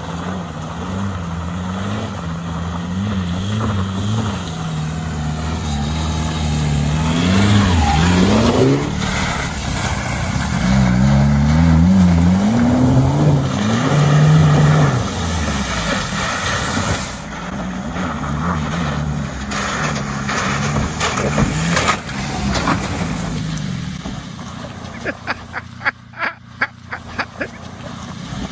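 Lifted VW Golf Mk4 estate's engine revving up and down as it drives through the mud, its pitch rising and falling over and over and loudest about a third of the way in before easing off. Near the end comes a quick run of sharp clicks.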